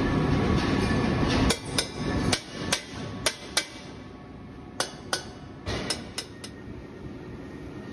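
A steady mechanical rumble that stops about a second and a half in, then a dozen sharp metal-on-metal knocks, many in close pairs, as a steel gas cylinder body is fitted and clamped into a circumferential welding machine's fixture.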